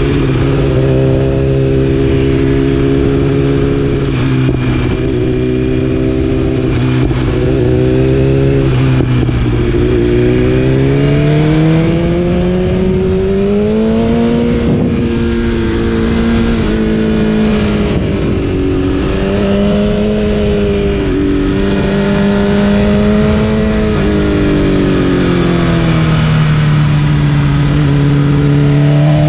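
BMW S1000RR inline-four engine with an Akrapovic exhaust, ridden at moderate revs. The pitch holds steady, climbs about ten seconds in, then falls and rises again several times as the throttle opens and closes, over steady wind and road noise.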